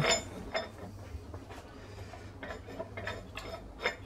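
Steel vice lead screw being turned by hand into a freshly cut Acme-threaded nut: irregular metallic clicks and ticks as the threads engage, coming closer together near the end.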